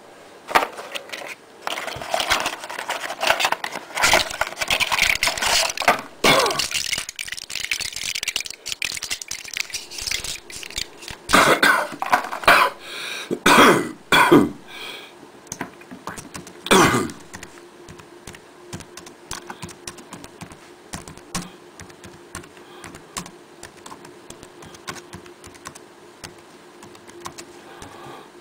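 A bad cough: repeated coughing fits, the loudest a cluster of hacks around the middle, ending with one last hard cough about seventeen seconds in. After that only faint scattered clicks over a steady hum.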